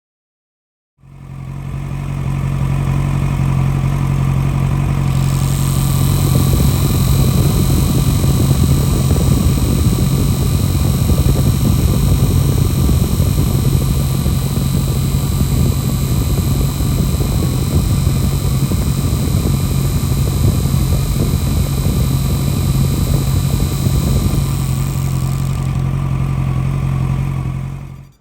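Kawasaki ZX-12R inline-four running steadily with its radiator fan on. A higher whirring layer comes in a few seconds after it starts and drops out shortly before it cuts off abruptly. The left radiator fan has an abnormal noise.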